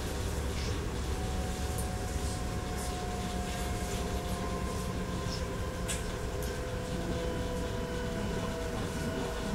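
DB Class 422 electric multiple unit running, heard from inside the car. The whine of its Bombardier MITRAC IGBT inverter and traction motors is several thin tones sliding slowly down in pitch as the train loses speed, over a steady low rumble of the running gear with a few light clicks.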